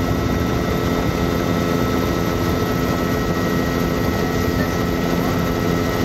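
Helicopter in flight, a steady, unchanging engine and rotor drone as heard from inside the cabin, with a few thin steady high tones over it.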